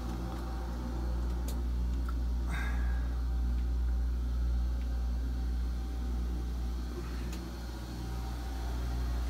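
Steady low machinery hum in a boat's engine room, with a couple of faint knocks from the camera being handled.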